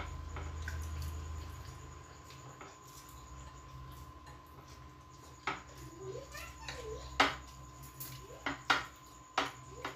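Eating by hand from glass plates: fingers working rice on the plates, with several sharp clinks against the plates in the second half and quiet mouth sounds of chewing between them.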